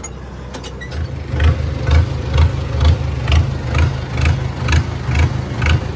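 Tractor engine running with a steady low drone. From about a second in, an evenly spaced low thump with a click on top comes about twice a second.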